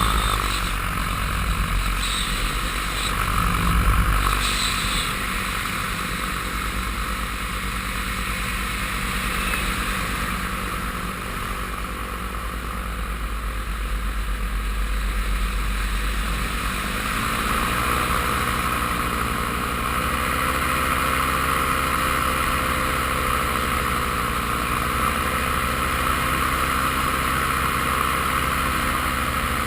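Paramotor engine and propeller running steadily in flight. Its pitch rises about halfway through and then swells and dips a few times.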